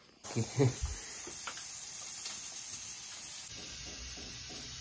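Steady high hiss of hot oil sizzling as puri deep-fry.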